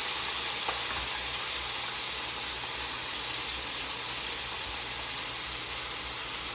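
Steady sizzling hiss of vegetables frying in hot oil in a cooking pot as a little water is added, easing slightly over the seconds.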